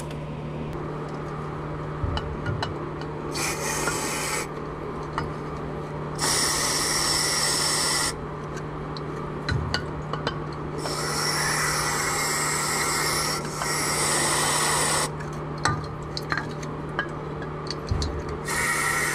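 Aerosol cleaner sprayed through its straw into an engine block's drain hole in about five bursts of hiss, each a second or two long, with a small metal hook scratching at sludge in the hole between them. A steady low hum runs underneath.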